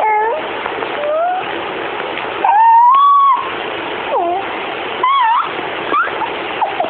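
A baby's short, high vocal squeals that glide up and down in pitch, about six in all, the longest about two and a half seconds in, over a steady hiss.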